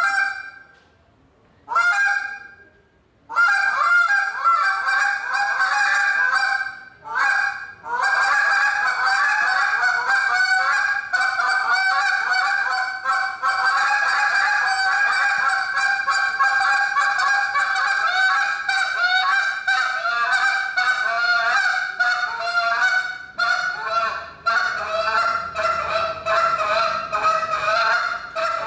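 A handheld goose call blown to imitate geese: a few single honks at first, then a long, nearly unbroken run of rapid short honks with only brief pauses.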